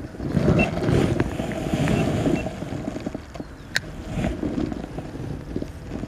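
Wind buffeting the camera microphone: an uneven, gusting rumble, with a few faint ticks and one sharp click about two-thirds of the way through.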